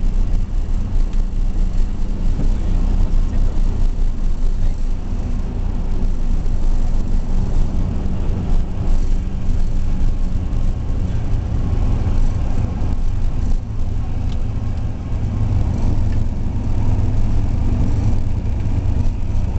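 Cessna 172SP's Lycoming IO-360 four-cylinder engine and propeller running at low power after touchdown, heard inside the cabin as a steady low drone. The low hum strengthens somewhat in the second half.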